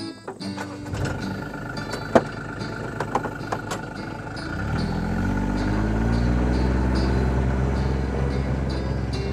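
John Deere Gator utility vehicle's engine running, with a few sharp clicks and knocks, then speeding up with a rising pitch about four and a half seconds in as the vehicle pulls away, settling into a steady drone.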